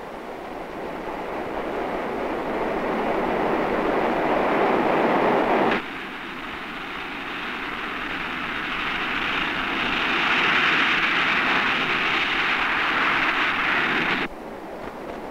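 Jet airliner's engines at takeoff power. A rushing jet noise builds and cuts off abruptly about six seconds in, then a second, higher-pitched jet noise builds and cuts off abruptly near the end.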